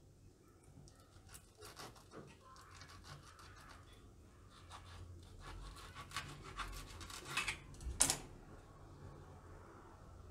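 A knife cutting through the crisp deep-fried crust of a lilva kachori: faint crackling and crunching, with a louder sharp crack about eight seconds in.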